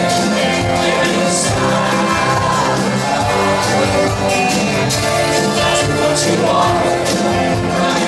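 Live rock band playing with vocals: acoustic and electric guitars, electric bass, keyboards and drums keeping a steady beat with cymbals.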